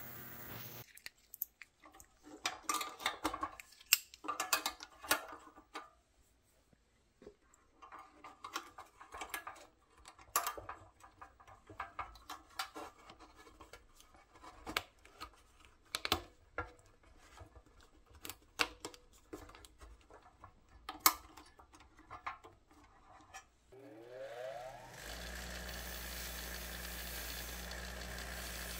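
Hands handle a metal toy dragline crawler with rubber tracks, making irregular clicks, taps and rattles for most of the stretch. Near the end a 6-inch bench grinder switches on. Its motor rises in pitch as it spins up and then runs steadily.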